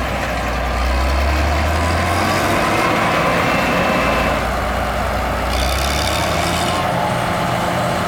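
John Deere WTS combine harvester running, a steady mechanical noise of engine and machinery. Its low engine hum fades about two and a half seconds in, swells back around four and a half seconds, and weakens again near the end.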